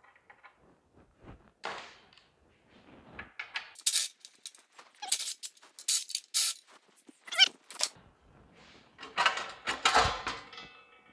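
A spark plug being worked out of a small Tecumseh engine's cylinder head with a socket wrench: a run of sharp metal clicks and a short squeak. Near the end, a louder metallic clatter and scrape as the sheet-metal recoil shroud is pulled off the engine.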